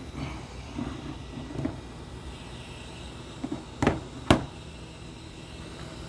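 Tools and parts handled on a workbench: a few light knocks, then two sharp clicks about half a second apart a little under four seconds in, over a steady low hum.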